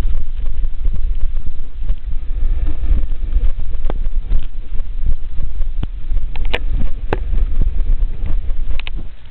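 Strong wind buffeting the microphone, a steady low rumble, with a few short sharp clicks about four and six to seven seconds in.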